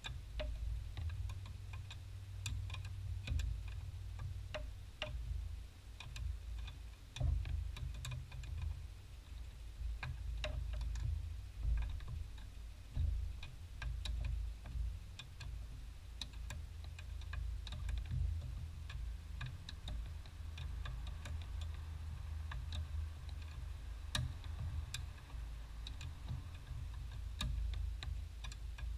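Ratchet wrench clicking in short, irregular runs as it turns the nuts at a brake master cylinder, over a steady low rumble.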